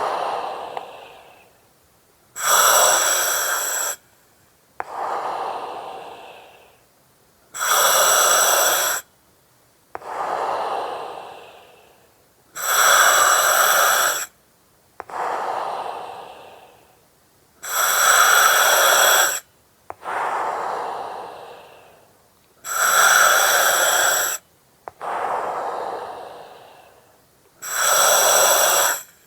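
Slow, regular breathing through an oxygen mask, about one breath every five seconds. Each cycle is a hard-edged hiss of gas through the mask lasting about a second and a half, then a softer breath that fades out.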